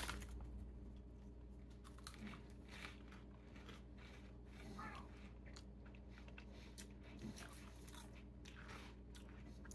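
Faint, irregular crunching of Cheetos puffed corn snacks being bitten and chewed, with a low steady hum underneath.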